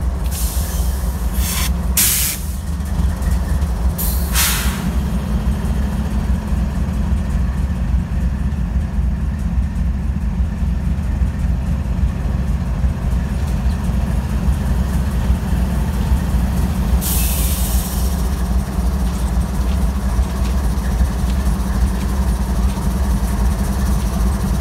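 Diesel-electric freight locomotives idling with a steady low drone: GE Dash 9-44CW and ES44 units and an EMD GP38. Short hisses of released air come several times in the first five seconds and once more about 17 seconds in.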